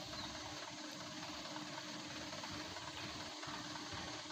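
Truck engine idling faintly and steadily, with no revving or other events.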